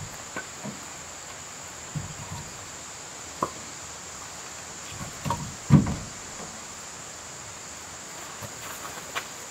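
Insects droning steadily in summer woods, one unbroken high-pitched tone, with scattered knocks and thumps of gear being handled; the loudest thump comes just past the middle.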